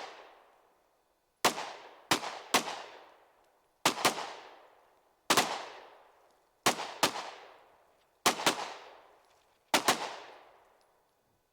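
Gunshots from handheld firearms, fired steadily: about a dozen sharp reports, mostly in quick pairs roughly every second and a half, each trailing off in a long echo.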